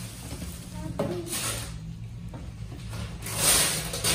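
Gift-wrapping paper rustling and tearing and a cardboard gift box being handled as a present is unwrapped, with a burst of rustling about a second in and a louder one near the end.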